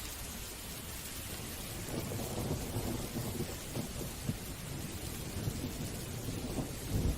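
Steady rain hissing, with a low crackling rumble coming in about two seconds in and growing louder near the end.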